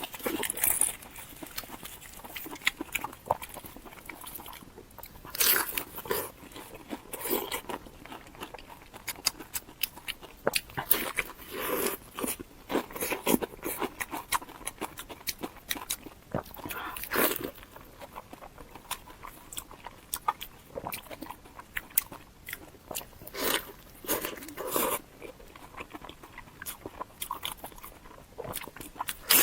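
A person biting and chewing crunchy food close to the microphone: irregular, sharp crunches with short pauses between bites.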